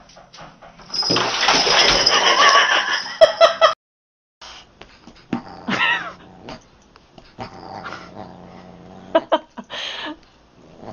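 A dog and a cat squaring off. About a second in comes a loud, dense stretch of animal cries that ends abruptly in a cut to silence, followed by shorter scattered cries.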